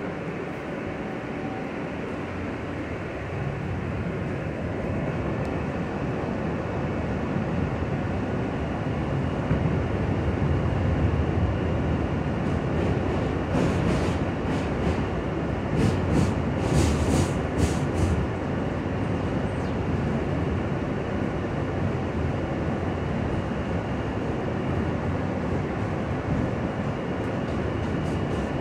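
R160 subway car's running noise heard inside the car as the train pulls out and picks up speed, getting louder a few seconds in. About halfway through, a cluster of sharp clacks from the wheels crossing the track stands out.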